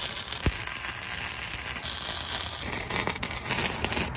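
Electric arc welding on steel, a continuous crackling and sizzling that shifts in texture about two seconds in.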